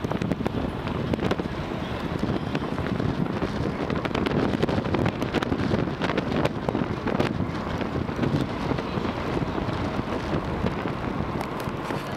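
Wind buffeting a phone microphone held out of a moving car's window, with irregular thumps over steady road and traffic noise.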